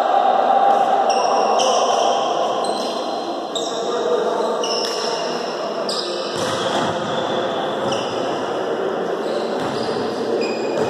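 Steady reverberant ambience of an indoor sports hall during a volleyball match, with faint high-pitched tones coming and going.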